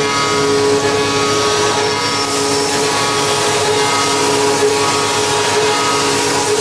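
Mazak VTC 300C CNC vertical machining center running and cutting: a steady whir with several held tones that fade in and out.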